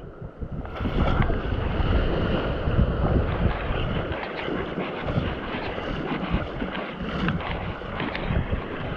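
Wind buffeting the microphone over water splashing around a small boat at sea, with a few scattered knocks.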